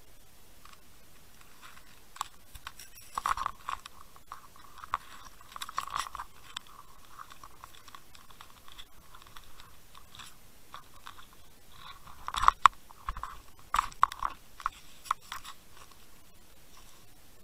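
Irregular underwater clicks and crunching scrapes picked up through an underwater camera's housing, in clusters about three seconds in, around six seconds, and most strongly from about twelve to fifteen seconds.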